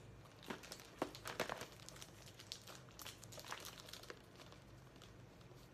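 Plastic disc cases and packaging of a music-video box set being handled: irregular clicks and crinkling rustles.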